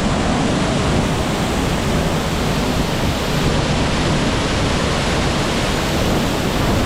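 Loud, steady roar of a waterfall heard close up, with wind rumbling on the microphone.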